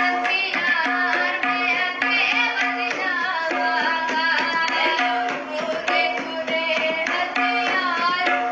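Devotional worship song: a voice singing over a steady rhythm of tabla strokes.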